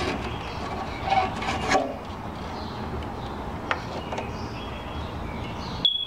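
Sheet-metal cover of a garage door opener being handled and pulled off the unit: rubbing and scraping, loudest about one to two seconds in, with a single light click a little after halfway.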